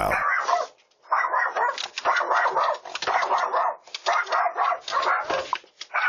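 A dog barking over and over, in a quick run of short barks that starts about a second in.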